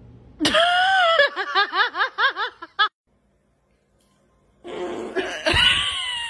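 A person laughing hard: a high shriek that falls in pitch, then quick rhythmic bursts of laughter that stop abruptly. After a moment of dead silence, a second loud outburst begins near the end.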